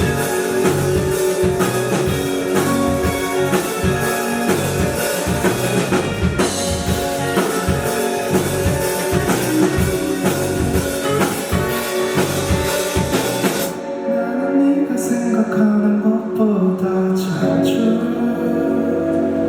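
Live rock band playing: drum kit, guitars and singing. About fourteen seconds in the drums drop out and the song goes on more softly with sustained notes and a melody line.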